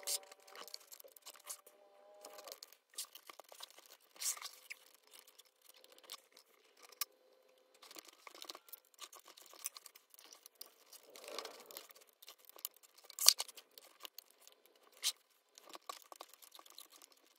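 Small screws being driven by hand into a wooden tray frame, working hard into tight holes: scattered small clicks and scrapes, a short squeak in the first couple of seconds, and one sharper click a little past the middle.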